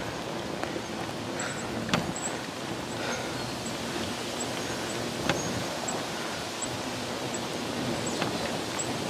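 Steady rushing outdoor noise with two sharp clicks, about two seconds in and about five seconds in.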